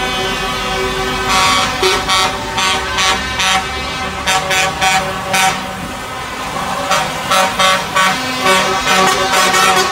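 Truck air horns sounding: a held horn note, then from about a second in, a rapid series of short toots, over the low rumble of lorry diesel engines pulling past.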